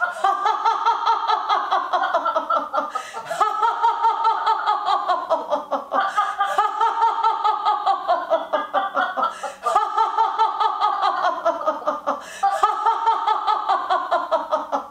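A woman's deliberate laughter-yoga laugh, vocalized on an open 'O' with her chin raised while she taps her diaphragm. Five long, rapidly pulsing laughs with short breaths between them, each sliding slightly down in pitch.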